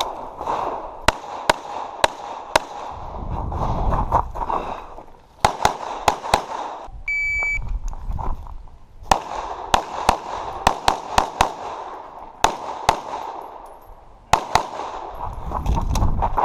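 Pistol shots in quick strings, with an electronic shot-timer start beep held for just under a second about 7 seconds in, followed by rapid fire.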